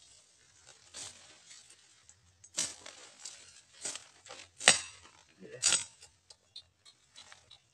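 Leafy undergrowth rustling and crackling in short, separate bursts as stems and leaves are grabbed and pulled by hand. There are about five main bursts, and the loudest comes a little past the middle.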